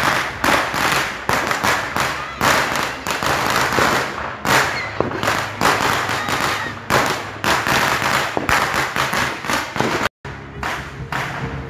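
A dense barrage of firecrackers and fireworks going off, many sharp overlapping bangs and crackles a second. The sound cuts out for a moment about ten seconds in, then quieter, more distant fireworks bangs carry on.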